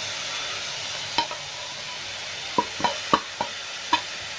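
Chopped onions and ground spices sizzling steadily in hot oil in a steel pan, with about six sharp clinks of a utensil against the pan, mostly in the second half.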